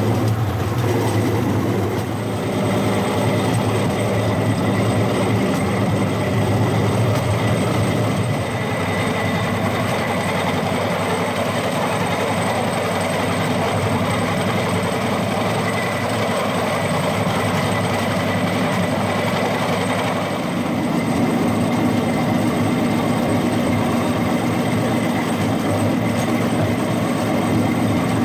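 Rail-mounted golf cart's engine running steadily while its wheels run along the railway track. The engine note changes about twenty seconds in.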